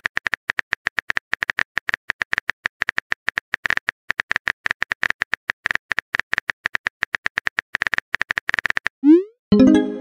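Rapid keyboard-tap clicks of a texting app's typing sound effect, several a second, as a message is typed letter by letter. Near the end the clicks stop for a short rising swoosh, then a brief chime as the message is sent.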